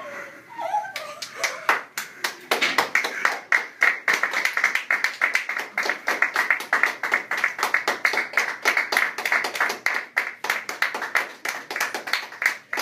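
A group of people clapping their hands, many claps a second, starting up about a second in and keeping on.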